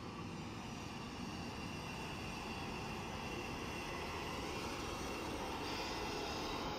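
ŽSSK class 361 electric locomotive and its passenger train rolling in, a steady hum and rumble with a faint high whine that grows gradually louder as it nears. A high hiss joins near the end as the locomotive draws alongside.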